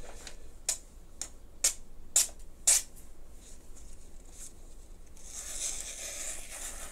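A sheet of printer paper being handled and sliced with a freshly sharpened kitchen knife, a paper-cutting test of the edge: five short crisp snaps in the first three seconds, then a longer papery hiss of the blade running through the sheet near the end.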